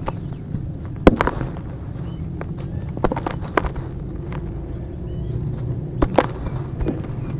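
Clumps of dirt being crushed and crumbled, with sharp crunching cracks at irregular intervals, about five in all, over a low steady rumble.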